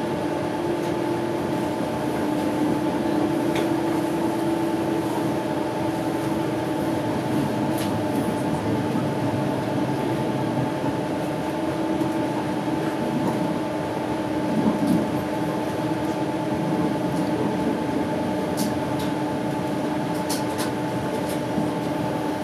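Inside a running passenger train carriage: a steady hum and rumble with a few held tones, and occasional light clicks in the second half.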